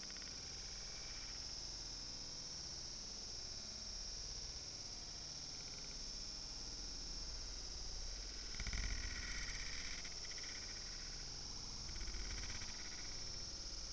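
Splashing as a hooked Eastern freshwater cod thrashes at the water's surface beside the boat, loudest about nine seconds in and again near the end, over a steady high-pitched hiss.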